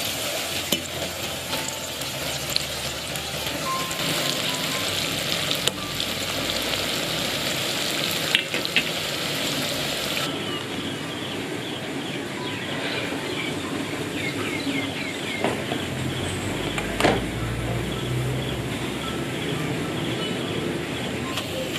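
Corn-flour-coated macaroni deep-frying in hot oil in a wok: a steady sizzle, with a few sharp taps of a metal spoon stirring it. About ten seconds in, the sizzle turns duller and loses its hiss.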